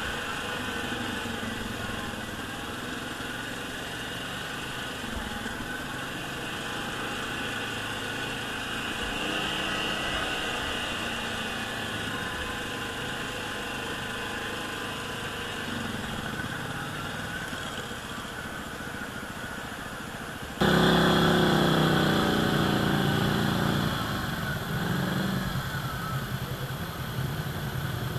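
ATV engine running on an off-road trail ride, fairly steady at first. About twenty seconds in the sound jumps abruptly louder, and the engine pitch rises and falls as it revs.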